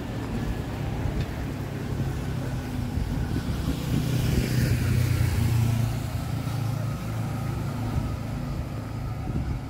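Road traffic with a car engine running; one vehicle passes close, loudest about four to six seconds in.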